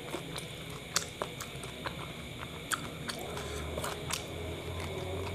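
A person biting and chewing a kebab wrap close to a clip-on microphone, with scattered sharp mouth clicks, the strongest about a second in.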